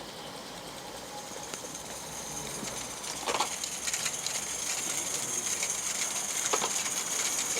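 A 16mm-scale live-steam model locomotive drawing closer: a steady high hiss of steam grows louder from about three seconds in, with a few sharp clicks.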